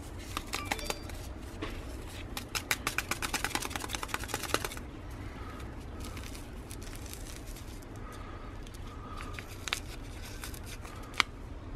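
Crinkling of a Tyvek desiccant packet being squeezed and rubbed between the fingers: a quick run of crackles from about two seconds in until nearly five seconds, then a few scattered single clicks.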